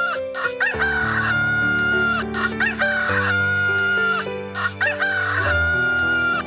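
A rooster crowing three times in close succession, each crow a few short notes and then a long held final note, over soft background music with sustained chords.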